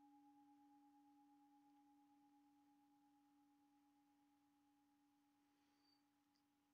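Faint, fading ring of a singing bowl: two steady tones, a low one and a higher one, slowly dying away. A faint short tick near the end.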